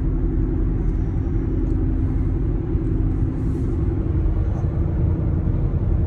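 Steady roar of Cooper Endurance Plus tires at about 57 mph, heard inside the car: a constant low rumble with a faint droning hum in it. The owner blames the tires, noisy since they were rotated, with the rear pair worn almost to the wear bars, though he allows it could be wheel bearings.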